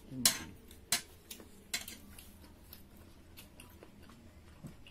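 Eating sounds at a shared meal of pork curry and rice: several sharp clicks and smacks, three of them strong in the first two seconds, with quieter chewing between.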